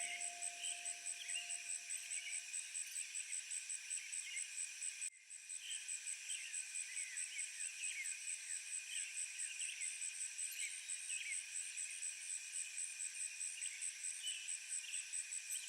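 Insects shrilling in dense forest: a high pulsing chirr at about four pulses a second over a steady drone, with many short falling chirps scattered through it. The sound drops out briefly about five seconds in, then carries on.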